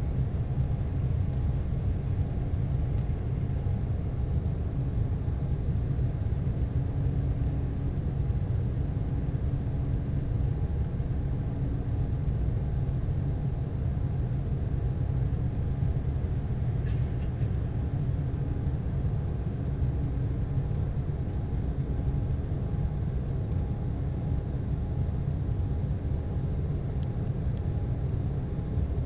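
Steady low roar inside the cabin of an Embraer 190 airliner over the wing, from its GE CF34-10E turbofan engines and the rushing air, just after takeoff. Faint steady hums from the engines slowly swell and fade.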